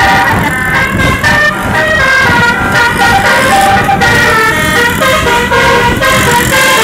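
Bus telolet 'Basuri' horn, a set of tuned air horns, playing a quick melody of short notes that step up and down, over a low rumbling noise.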